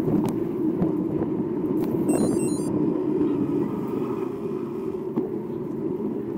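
Mountain bike rolling on asphalt: steady rolling noise from the knobby tyres mixed with wind on the microphone. A brief high chattering sound about two seconds in.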